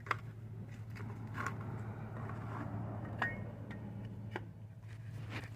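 A few light clicks and taps, as of parts being handled, over a steady low hum.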